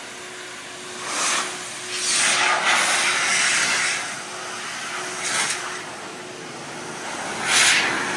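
Car wash air dryer blowing, a loud hiss of rushing air that swells and fades several times, with a steady hum underneath.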